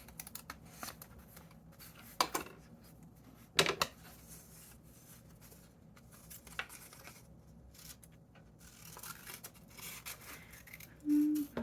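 Scissors cutting paper in a few separate snips, with small rustles and clicks of paper being handled between the cuts.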